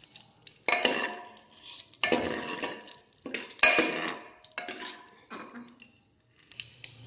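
Steel ladle scraping and clinking against the inside of an aluminium pressure cooker as garlic and dried red chillies are stirred in frying oil. It comes in about four strokes roughly a second apart, some with a faint metallic ring.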